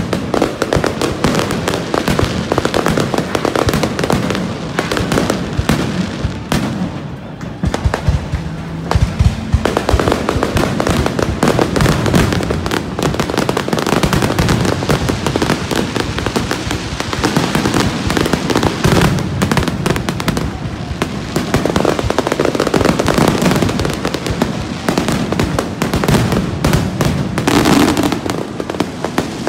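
Aerial fireworks shells bursting in rapid, overlapping bangs, a dense and loud barrage throughout.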